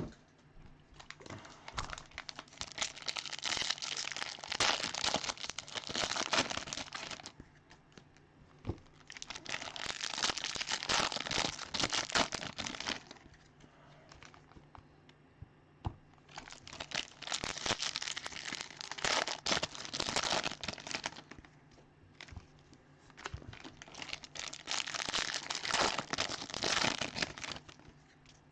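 Baseball card packs' plastic and foil wrappers being torn open and crinkled by hand, in four bursts of crackling separated by short pauses.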